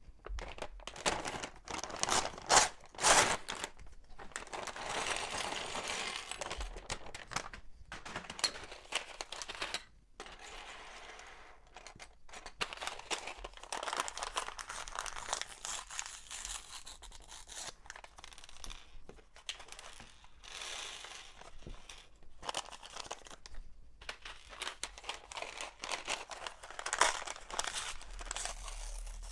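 Plastic LEGO parts bags being torn open and crinkled, an irregular crackling rustle with sharp tearing snaps, the loudest about two to three seconds in.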